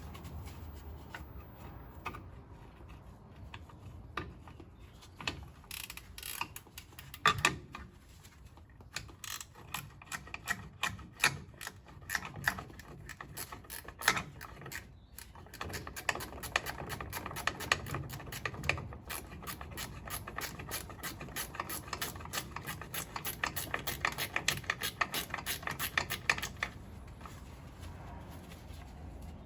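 A socket ratchet clicking in quick runs as it undoes the bolts holding a drum-brake wheel cylinder to the backing plate, with a few sharper metal knocks in the first half.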